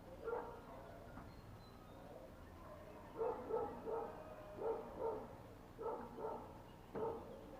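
A dog barking repeatedly, mostly in quick pairs of barks, about five times.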